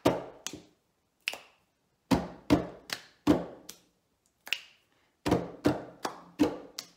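Two people's hands slapping a wooden tabletop and clapping together in a rhythmic table-clapping pattern. The slaps and claps come in runs about two to three a second, with short gaps between the bars.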